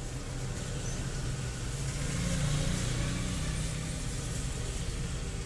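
Low engine rumble of a passing motor vehicle, swelling to its loudest about halfway through and then easing off, over a steady hiss.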